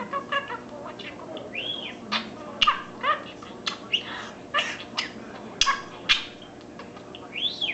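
Budgerigar chattering: a rapid run of short chirps and clicks mixed with arching whistled notes, two of them rising then falling near the start and near the end.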